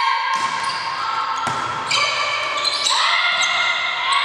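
Volleyball being struck sharply a few times during a rally in a sports hall, with players shouting and calling out over it.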